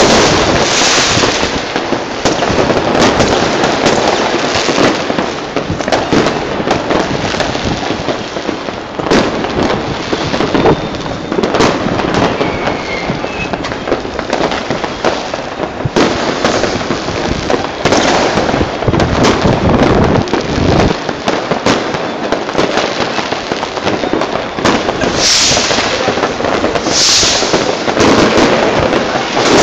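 Many fireworks going off at once across a town: a dense, continuous crackle of firecrackers and rockets with frequent sharp bangs, and two brief hisses near the end.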